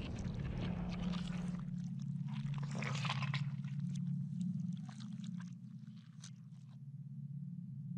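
Sound effects for an animated logo intro: a steady low hum with scattered crackling clicks over it, thickest about three seconds in and dying out near the end.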